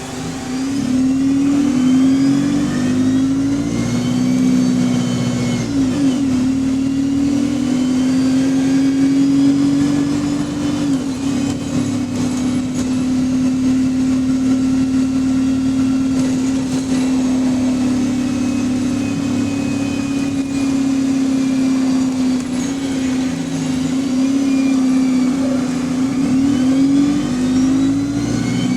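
Bus with a Voith automatic gearbox driving, heard on board: a strong steady whine that steps and slides in pitch several times as it picks up speed early on, holds level while cruising, then steps again near the end.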